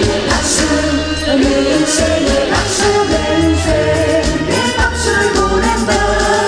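A woman singing a Korean trot song live into a microphone, amplified, over backing music with a steady bass and drum beat.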